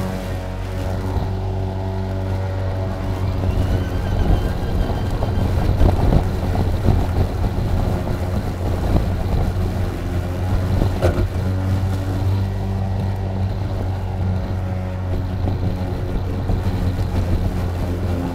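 EGO Power+ LM2135SP 56 V battery self-propelled lawn mower running steadily with a deep electric motor and blade hum while cutting thick grass and weeds. A rougher cutting noise rises briefly around six seconds in.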